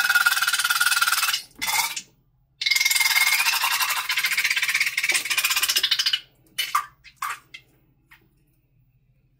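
Slime squeezed out through a balloon's neck, making raspy, buzzing squeals. A long squeal and a short one come first, then after a brief pause a second long squeal of about three and a half seconds, ending in a few short squirts.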